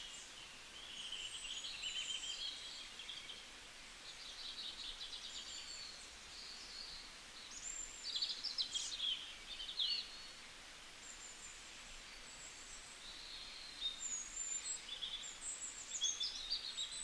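Small birds chirping and trilling in short, high phrases every second or two, over a faint steady hiss.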